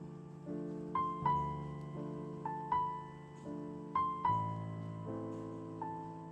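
Background piano music: a slow, gentle melody of single high notes, often struck in quick pairs, over softly held lower chords.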